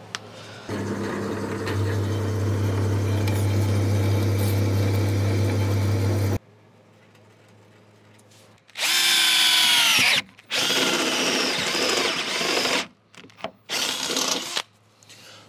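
Power drill boring a hole in the car's steel floor pan at the ISOFIX bracket mounting point. One steady run of about six seconds stops abruptly; after a short lull come several shorter runs, the first falling in pitch as the motor slows.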